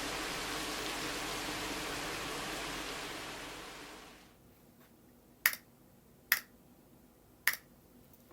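Steady hiss that fades out over the first four seconds, then three separate, sharp keystrokes on a Matrix 2.0add mechanical keyboard with 43Studios Popu switches in a top-mounted aluminium plate under GMK keycaps, spaced about a second apart.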